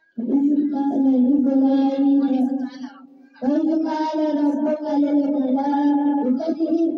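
A boy's voice chanting Qur'anic recitation in a melodic, drawn-out style into a microphone. There are two long phrases with a short breath between them just past three seconds in.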